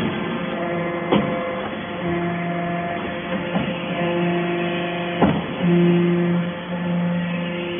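Hydraulic metal-shaving baler running: a steady machine hum whose low tone steps louder for stretches of a second or so as it presses, with a sharp knock about a second in and another about five seconds in.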